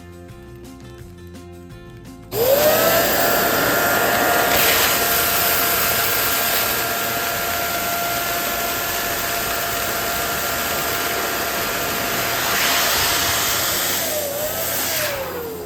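Electric balloon pump switching on about two seconds in and blowing steadily with a whining motor tone, inflating a balloon; near the end the motor winds down and its pitch falls.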